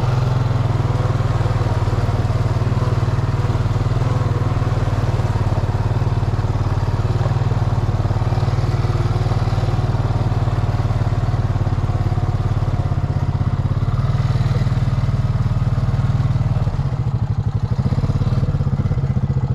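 ATV engine running steadily under load while riding a muddy trail; about seventeen seconds in the note eases into a slower, pulsing chug.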